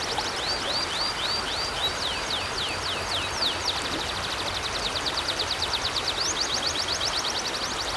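A songbird singing a long series of high chirps: hooked notes at about four a second in the first two seconds, then falling notes, then a fast trill of about ten notes a second from about four seconds in. Underneath is the steady rush of flowing river water.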